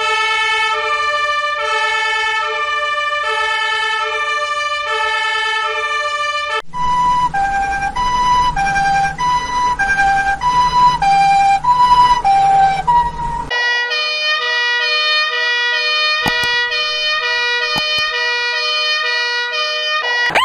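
A run of two-tone emergency vehicle sirens of the European hi-lo kind, three versions back to back, each stepping steadily between two notes. The second version, from about seven seconds in, is louder, changes note about once a second and has a low rumble under it. The last, from about thirteen seconds in, sits lower in pitch and has two sharp clicks.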